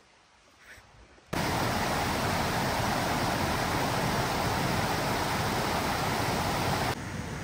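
A loud, steady rushing noise, even and without any tone, starts abruptly about a second in and drops suddenly to a quieter rush near the end.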